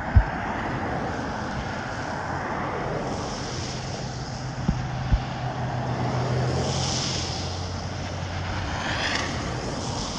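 A semi-truck's diesel engine running at low speed as the tractor-trailer creeps forward, with a steady low hum, while cars pass on the slushy road, their tyres hissing by twice in the second half. A couple of short low thumps come just before the middle.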